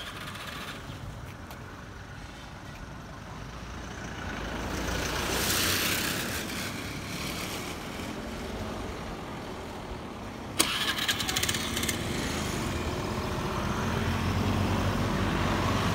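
Street traffic on a wet road: a vehicle passes with tyre hiss, loudest about five to six seconds in. About ten and a half seconds in there is a sharp click, and then a nearby engine runs steadily and louder.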